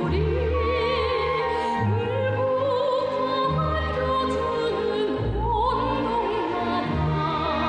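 A song with a singer holding long notes with strong vibrato over orchestral accompaniment, the bass moving to a new note every second or two.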